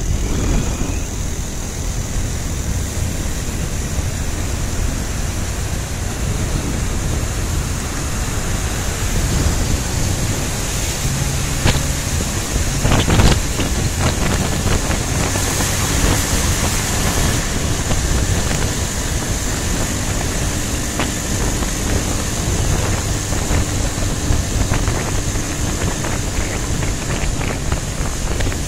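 Steady road noise from a moving vehicle: a continuous low rumble of tyres and running gear with wind buffeting the microphone, and a couple of brief knocks about halfway through.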